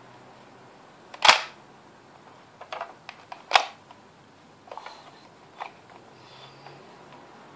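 Plastic Cars 2 Mater toy tow truck being worked by hand: two loud, sharp plastic snaps about two seconds apart, with lighter clicks between and after them.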